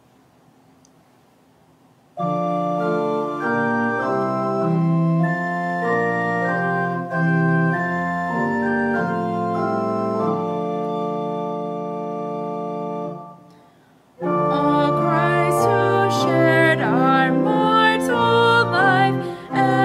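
Church organ plays a hymn introduction in held, stepping chords, starting about two seconds in and breaking off shortly after thirteen seconds. It then comes back in as accompaniment, and a voice begins singing the first verse of the hymn over it.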